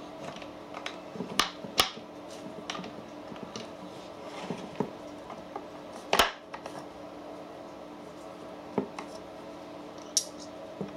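Scattered small clicks and clinks of steel slip gauges being picked out of their wooden case and handled, the loudest about six seconds in, over a steady low hum.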